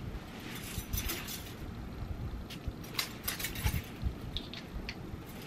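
Scattered light clicks and clinks of a glass perfume bottle and its packaging being handled, with a few brief noisy strokes among them.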